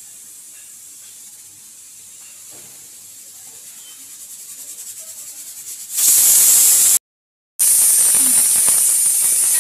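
A steady high-pitched hiss, faint at first, then much louder from about six seconds in. About a second later it cuts out briefly before resuming.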